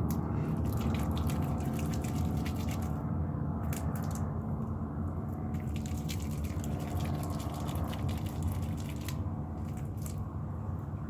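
Wet slime being squished and worked by hand, with scattered sticky clicks and pops over a steady low hum.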